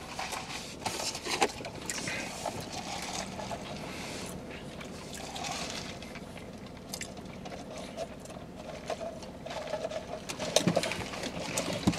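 Two people sucking drinks through straws from plastic fountain cups: a soft, wet slurping with a few small clicks, more of them near the end.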